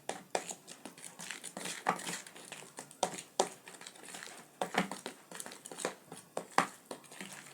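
Banana bread batter being stirred in a bowl, the utensil clicking and knocking irregularly against the bowl several times a second.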